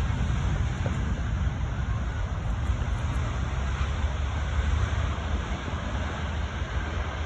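Airbus A320neo with CFM LEAP engines on its landing approach: a steady jet roar with a deep rumble underneath.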